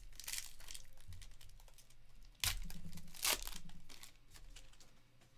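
Foil wrapper of a 2022 Panini Certified Football card pack being crinkled and torn open by hand, with two louder, sharper rips in the middle.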